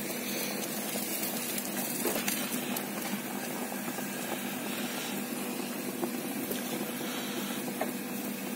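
Marinated chicken drumsticks sizzling on a hot gas grill: a steady, even hiss with a faint low hum underneath.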